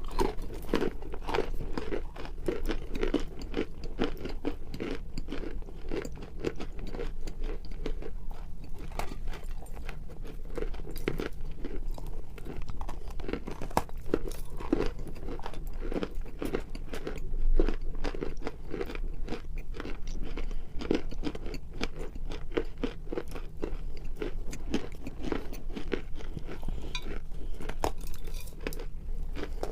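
Close-up crunching and chewing of dry pieces of edible clay, a rapid irregular run of crisp crunches.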